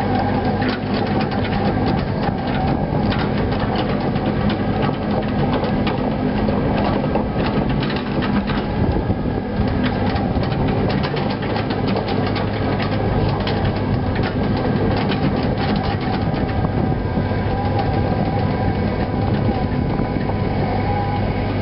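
Cat 307C mini excavator's diesel engine running steadily, with a quick, irregular clatter of its tracks and undercarriage as the machine travels.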